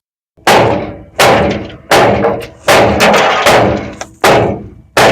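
Hammer blows on the steel sheet metal of a 1950 Ford F1's front end, about seven hard strikes at an even pace, each ringing briefly: beating out a deep dent from a tyre blowout.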